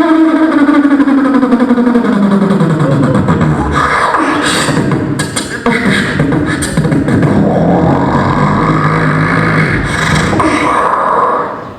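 Beatboxing: one performer's voice mixing a hummed tone that slides down in pitch over the first few seconds with sharp, drum-like clicks and hits through the middle.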